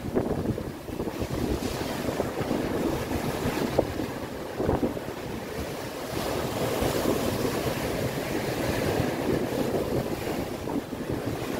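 Sea surf washing in and out along the shore, with wind buffeting the microphone. The hiss of the water swells up twice, about two seconds in and again from about six seconds.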